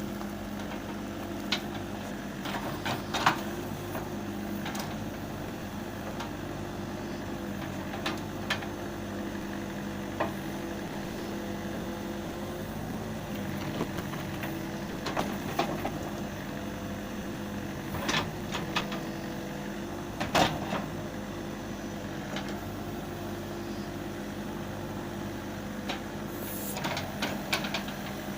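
Backhoe's diesel engine running steadily under work, with occasional sharp clanks, a few close together and the loudest about twenty seconds in.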